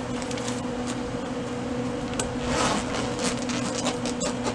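Fabric rustling and light clicks as the lid and metal handles of a soft-sided insulated cooler are closed, heaviest around the middle. A steady mechanical hum runs underneath.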